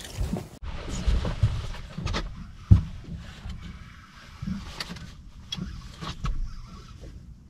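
Wind rumbling on the microphone and water lapping at the boat, with one loud knock on the boat about three seconds in and a few lighter clicks after it.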